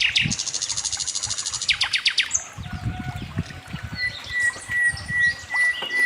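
Several songbirds singing. A fast, high trill runs for about the first two seconds, then come scattered chirps and a long, steady whistled note near the end. Low, irregular knocks sound underneath.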